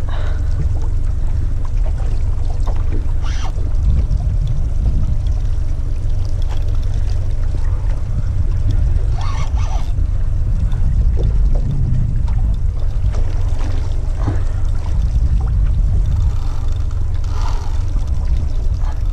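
Steady low rumble of wind buffeting the microphone on an open boat, with faint water sounds around the hull.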